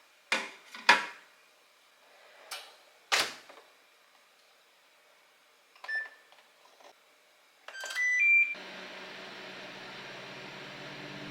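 A few knocks of things being handled and set down, then a microwave oven's keypad beeps and the oven starts running with a steady hum about two-thirds of the way in.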